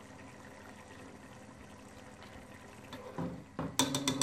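Chicken broth bubbling faintly in a pot. Near the end come several sharp clacks of a slotted spatula knocking against the pot.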